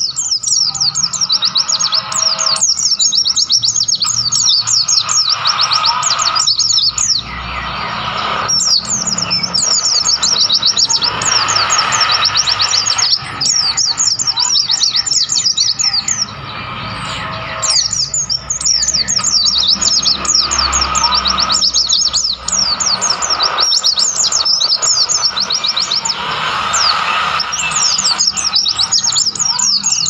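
White-eyes (pleci) singing: fast, dense runs of high twittering chirps, in long bouts broken by brief pauses.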